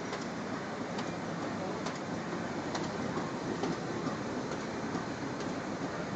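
Smyth book-sewing machine running: a steady mechanical din with a sharp tick repeating about once a second as it cycles.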